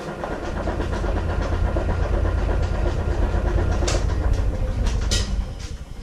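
Jet 1440 wood lathe spinning a large, off-balance eucalyptus bowl blank at about 400 RPM. It makes a heavy low rumble with continual rattling as the out-of-balance blank shakes the lathe, with sharper knocks about four and five seconds in. The rumble fades near the end.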